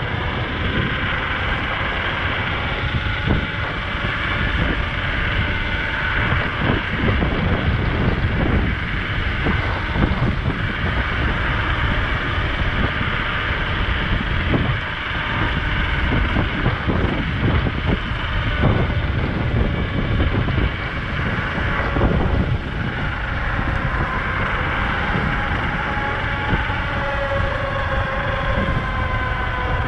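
Heavy wind rush over the microphone from an Apollo Ghost electric scooter ridden hard at about 30 to 37 mph. Under it the scooter's motors give a faint whine that drifts up and down in pitch with the speed.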